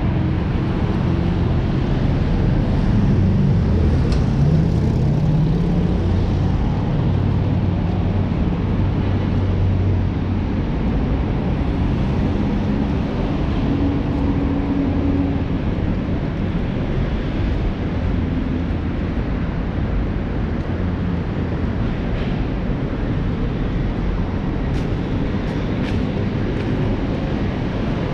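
Steady low rumble of city street traffic, with engine tones that come and go.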